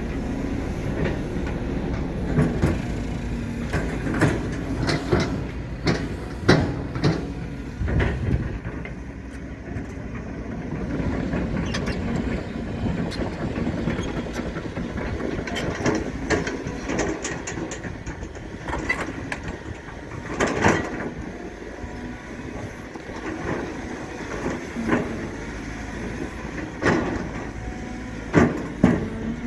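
Cat 320 hydraulic excavator running its diesel engine steadily while working soil, with many irregular metal clanks and knocks.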